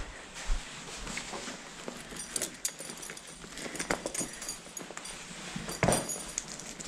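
Horse being untacked in a stable: scattered clinks and knocks of saddle fittings and buckles being handled, with shuffling on the bedding and a louder knock about six seconds in.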